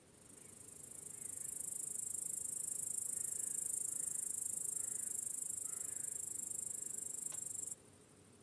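High-pitched cricket chorus, a dense steady buzzing trill that swells in over about the first second, holds steady, then cuts off suddenly near the end, leaving a fainter cricket background. A few faint, soft chirps sound underneath.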